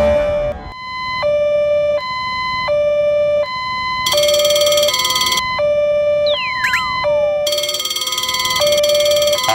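Electronic two-tone alarm alternating between a low and a high tone, each held about three-quarters of a second, in a steady hi-lo cycle. A brighter, buzzier layer joins in twice, and a few quick falling whistle glides sound just past the middle.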